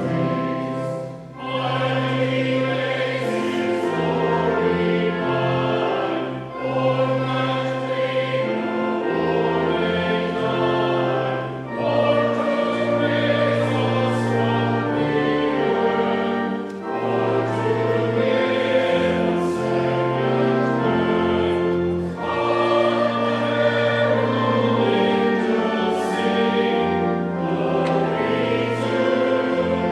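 A hymn sung by a choir with instrumental accompaniment: held chords over a steady bass line, with a short break for breath about every five seconds between phrases.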